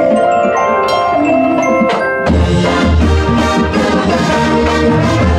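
Marching band front ensemble playing mallet percussion (marimba, xylophone, glockenspiel) in quick ringing notes. About two seconds in, a sharp hit marks the full band's entrance with a strong, deep bass underneath.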